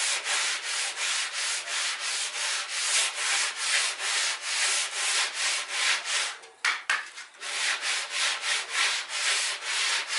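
Sandpaper rubbed by hand over wood in quick back-and-forth strokes, about three a second, with a short break about two-thirds of the way through.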